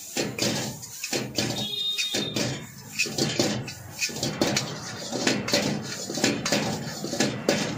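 Steel ladle scraping and clanking against a wok as food is stir-fried, with irregular metallic knocks several times a second.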